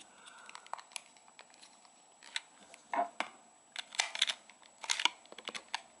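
Knife blade prying and scraping along the seam of a plastic TV remote's case, giving irregular small plastic clicks and scrapes as the latches holding it together are worked loose. The clicks come more often in the second half.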